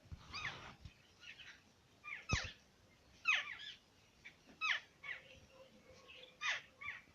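Small birds chirping: short downward-sweeping chirps, one every second or so, with a single thump about two seconds in.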